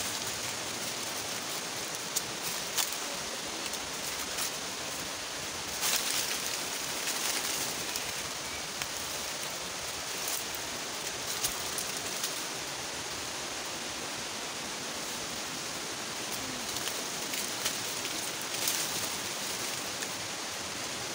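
Steady rushing of water, an even hiss with no pitch to it, with a few short rustles and footfalls from people climbing down a steep leaf-littered trail.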